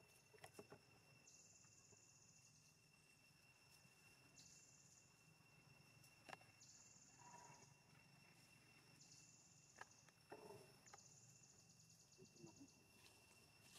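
Faint insect calls: a pulsed high buzz in five phrases of about a second and a half each, every two to three seconds, over a steady high tone. A few soft clicks and rustles come between them.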